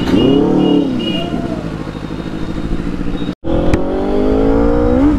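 Benelli 600i inline-four motorcycle engine revving: a quick rev rising and falling early, then pulling hard under acceleration with the pitch climbing steadily until it drops at a gearshift near the end. The sound cuts out for an instant about two-thirds of the way through.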